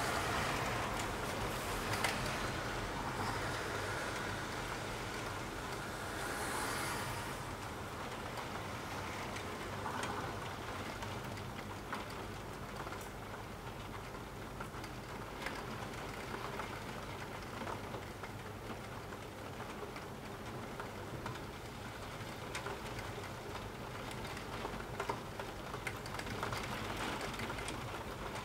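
Steady rain: a soft hiss scattered with many separate drops ticking, over a low steady rumble. It is a little louder in the first few seconds, then settles.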